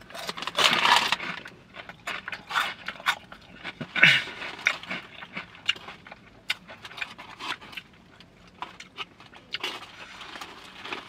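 Crinkling and rustling of a Hot Cheetos bag and sandwich wrapper being handled, with many sharp crackles and louder rustling bursts about half a second in, around four seconds in, and near the end.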